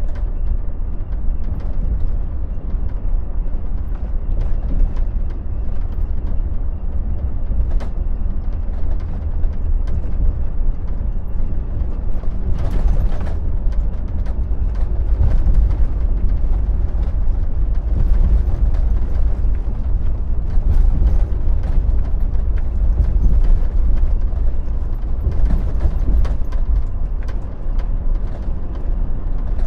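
Volvo semi truck cruising, heard from inside the cab: a steady low rumble of engine and tyres, with scattered light clicks and rattles.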